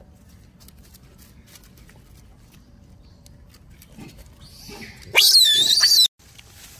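A macaque's shrill, wavering squeal lasting about a second, starting about five seconds in and cutting off abruptly.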